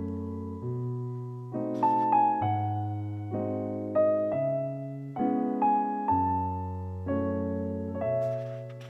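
Slow, gentle solo piano music: notes and chords struck about once a second, each ringing and fading before the next.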